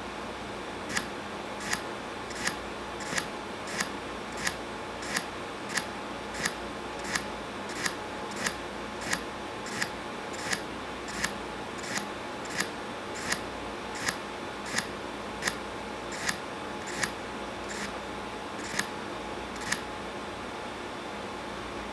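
Scissors snipping in an even rhythm, a short, sharp cut about every 0.7 seconds, some two dozen in all, over a steady background hiss. These are the cutting sounds that give feedback for a virtual scissors system.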